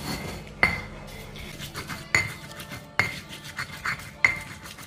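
Stone pestle (ulekan) grinding spice paste of chilies, shallots and garlic in a stone mortar (cobek): rubbing and scraping with about five sharp stone-on-stone knocks.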